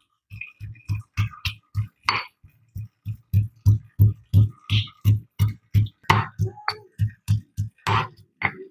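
Stone pestle pounding shallots and garlic in a granite mortar: a steady run of dull thuds, about three a second.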